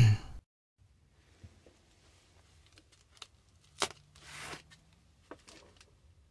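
Foam packing wrap being handled and rustled by hand, with scattered faint clicks. A sharper click comes about four seconds in, followed by a brief crinkling rustle.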